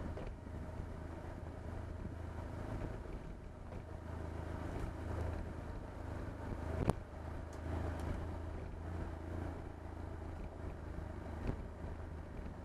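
BMW R1150GS sidecar rig's boxer twin engine running steadily under way on a dirt road, with tyre and road noise. A single sharp knock comes a little past halfway, and a smaller one near the end.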